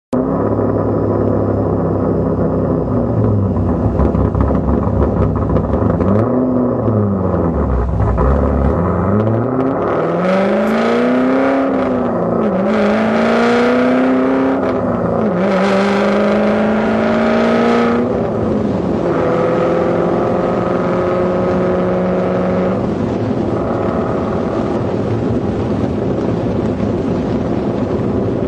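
Car engine breathing through a B&B Bullet aftermarket exhaust: running steadily, then accelerating through the gears with the note rising and dropping at each shift, then settling into a steady cruise.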